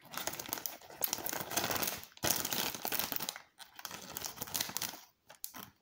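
Thin plastic cookie packaging crinkling as it is handled, a dense run of crackling rustles for about three seconds, then quieter, scattered crinkles and clicks.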